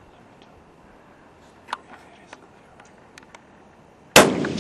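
A .300 Weatherby Magnum rifle fires a single shot near the end, a sharp crack followed by a rolling echo that dies away slowly. Before it there are a few faint clicks.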